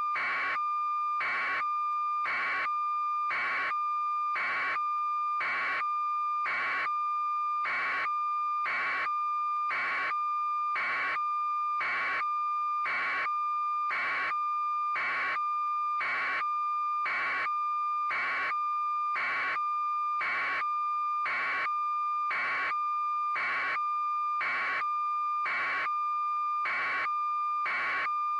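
Electronic alarm-like signal: a steady high tone that never changes, with a beep pulsing about once a second throughout.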